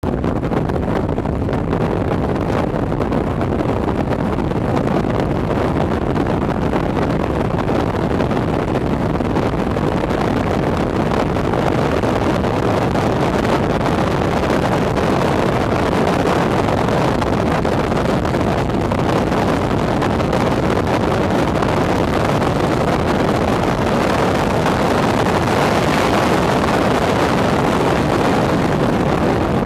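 Wind buffeting a microphone carried on a moving truck, with vehicle engine noise at speed running underneath. The noise is steady and grows a little brighter near the end.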